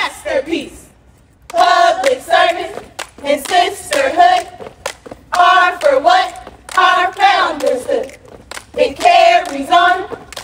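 Several women's voices singing short phrases in a chant-like pattern, one phrase every second or two, with sharp hand claps between them; a brief pause about a second in.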